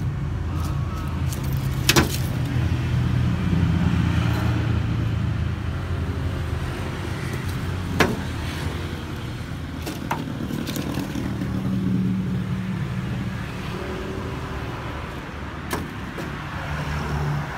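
Isuzu Panther diesel engine idling steadily, with two sharp clicks about two and eight seconds in.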